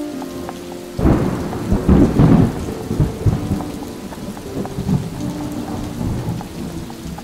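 Thunder over steady rain: a sudden loud rumble breaks about a second in, swells, then slowly dies away, with a few soft sustained musical tones underneath.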